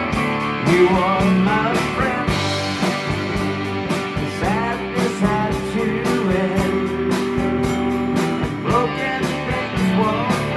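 Live rock band playing with electric guitars, sliding lead-guitar lines and a steady drum beat.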